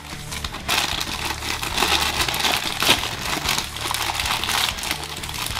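Shiny black foil blind-bag pouch crinkling as hands work it open: a dense, crackly rustle that starts about half a second in and goes on, with a sharp crackle near the middle.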